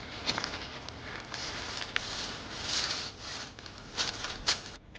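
Rubbing and crunching noises broken by a few irregular sharp clicks.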